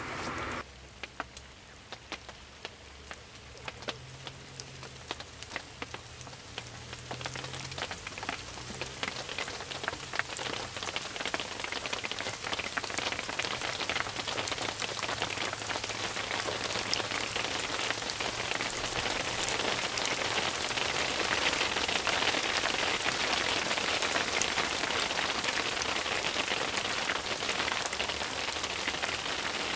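Rain falling. It starts as scattered, separate drops and builds into a steady, heavier shower by about two-thirds of the way through. A faint low hum runs underneath during the first half.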